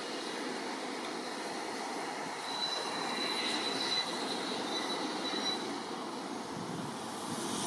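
Small tank steam locomotive and its carriages moving slowly along a station line, the wheels running on the rails. About three seconds in, a thin high wheel squeal comes in and fades out a couple of seconds later.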